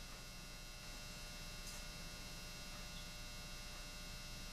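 Steady electrical mains hum with faint hiss, and one faint click about a third of the way in from a small screwdriver turning a sight-rail screw.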